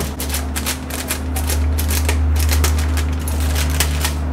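Scissors working at a plastic bag of brownie mix: a quick, irregular run of snipping clicks and plastic crinkle, over a steady low hum.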